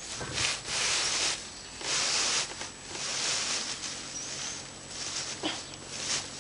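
Loose hay rustling and crunching as it is tamped down into a homemade hand-operated hay baler box, in repeated strokes each about a second long.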